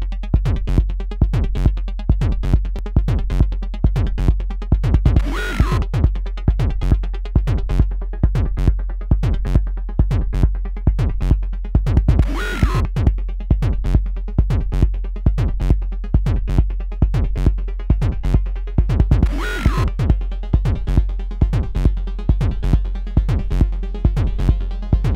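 Live electronic trance/techno played on a Korg Volca Keys synth and Korg Electribe Sampler: a steady drum-machine kick beat of about two strikes a second over a sustained low bass. A bright swept noise hit comes around three times, about every seven seconds.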